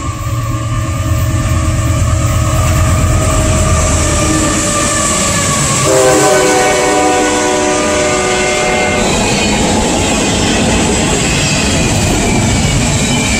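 A CSX diesel freight locomotive approaches and passes at speed with its engine rumbling and its multi-note air horn sounding. The horn chord drops in pitch as the locomotive goes by, about six seconds in, which is the loudest moment, and the horn stops about three seconds later. The double-stack container cars then roll past with steady wheel noise on the rails and a faint wheel squeal.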